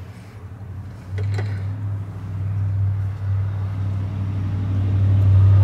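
A motor vehicle's engine running, heard as a low steady hum that comes in about a second in and grows louder.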